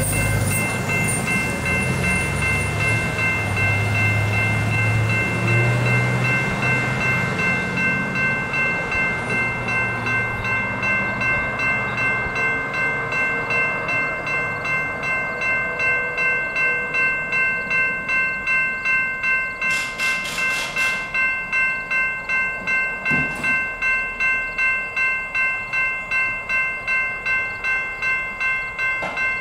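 Railroad crossing warning bells ringing steadily at about two strokes a second while the gates are down. A heavy engine rumbles low under the bells for the first several seconds, then fades away.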